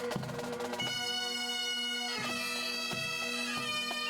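Bagpipes playing a tune over their steady drone, with drums beating along: a pipe band marching in a parade.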